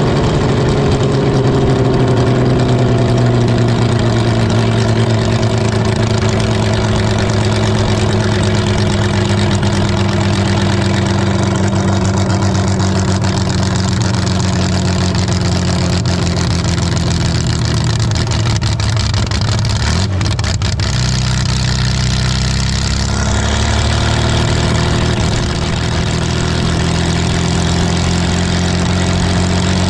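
Holden grey motor straight-six of a dragster running at low revs. Its pitch eases down over the first few seconds, then holds steady, with a short dip about twenty seconds in.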